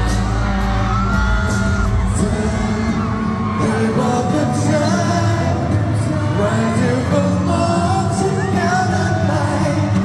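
Male voice singing a pop song over loud amplified backing music with a steady bass line and drum hits.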